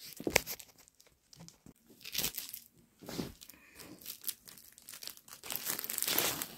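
Parcel packaging being torn open and crinkled by hand, in irregular rustling bursts, the longest near the end.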